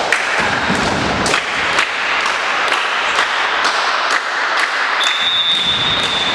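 Volleyball supporters in a gym cheering and shouting, with sharp claps or beats about twice a second. A long, steady, high whistle starts about five seconds in.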